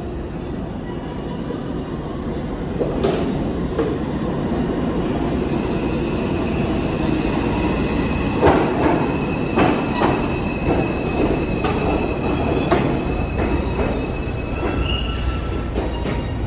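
R142 subway train pulling into the station and braking to a stop. Its rumble grows from about three seconds in, a run of sharp clacks over the rails comes in the middle, and a high steady tone sounds through the braking until the train halts.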